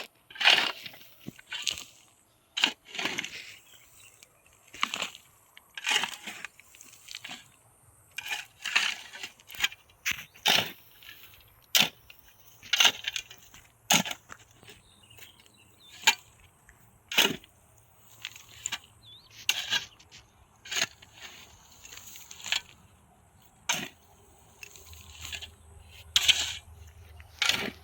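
A series of sharp knocks or strikes, irregularly spaced about one to two seconds apart, some followed by a brief crunching rasp.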